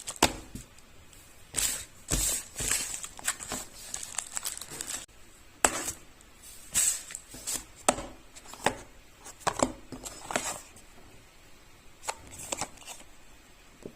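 Packaging of a small Bluetooth audio receiver being handled and opened by hand: irregular crinkling and rustling, with sharp clicks and taps.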